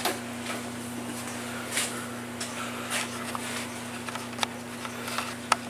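A steady low hum with a few faint, brief clicks and taps over it.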